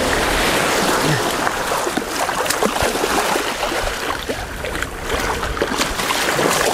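Shallow seawater splashing and churning as a released bull shark thrashes away through the shallows and a man wades in after it, over small waves lapping at the shore.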